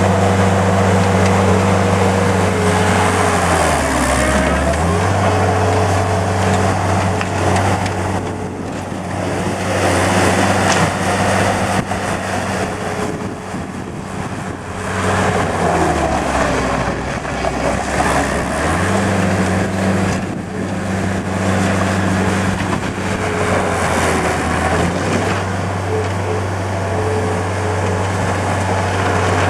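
Kubota diesel engine of a Thomas 153 skid steer loader running at high throttle while the machine is driven and worked. The engine note drops briefly about four seconds in and again for a few seconds in the middle, then comes back up to speed.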